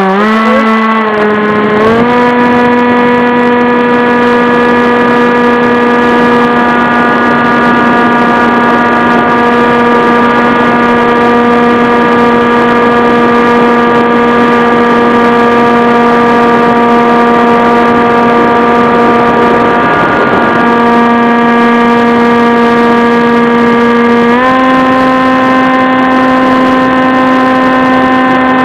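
RC FPV aircraft's motor and propeller running at a steady pitch, heard close up from the onboard camera. The pitch steps up a little about two seconds in and again near the end.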